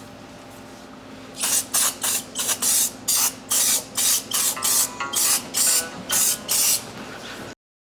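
MIG welder laying a run of short stitch or tack welds: about a dozen quick sizzling bursts of arc, roughly two a second, after a moment of faint steady hum. The sound cuts off suddenly near the end.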